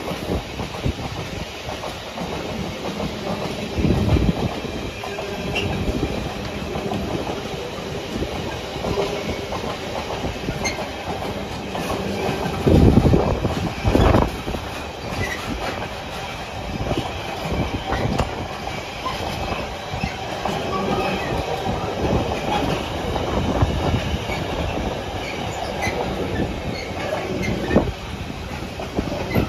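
Container freight train's flat wagons rolling past close by, wheels clattering steadily over the rail joints, with a few heavier thumps about four seconds in and again around thirteen and fourteen seconds.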